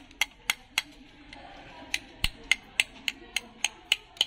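A snail's calcium carbonate shell being tapped with a small hand tool to crack it open: sharp, even clicks, three or four a second. The tapping pauses for about a second under a second in, then starts again.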